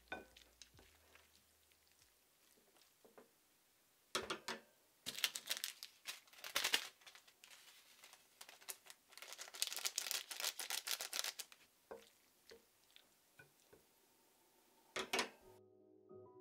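Small plastic seasoning packet torn open and crinkled in several short bursts, with a few light clicks in between.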